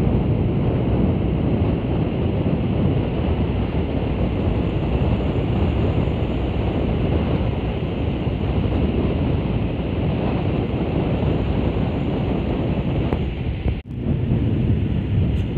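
Steady wind buffeting on the microphone mixed with road and traffic rumble, recorded from a vehicle moving alongside a truck. The sound drops out for a moment near the end.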